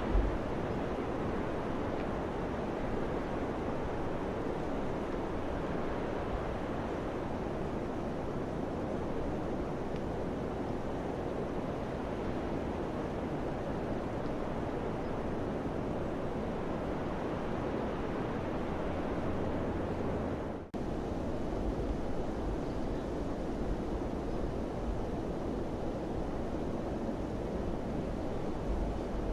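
Steady rushing of wind, with low rumbles from gusts buffeting the microphone. About two-thirds of the way through, the sound drops out for an instant and then resumes.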